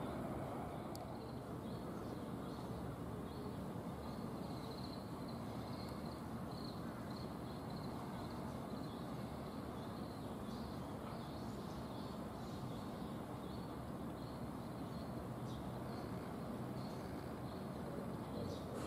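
Steady, distant low rumble of a freight train, an EF66 electric locomotive and container wagons, rolling slowly through the yard, with faint bird chirps scattered throughout.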